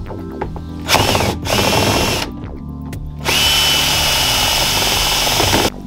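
Cordless drill running in three bursts: two short ones, then a steady run of about two and a half seconds with a thin high whine, which stops suddenly near the end.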